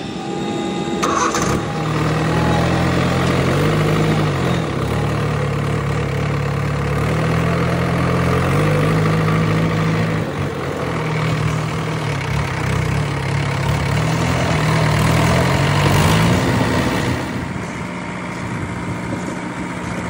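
Diesel engine of heavy farm or earthmoving machinery running, its speed stepping up and down several times. A short high whine sounds about a second in.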